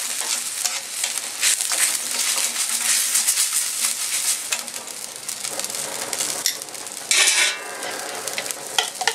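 Broth bubbling and sizzling in a steel paella pan of fideuà on the burner, while metal tongs stir seafood through it with short clicks against the pan. There is a louder burst of noise about seven seconds in.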